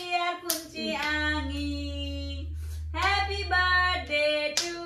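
A small group of voices singing together in held notes, with a few hand claps.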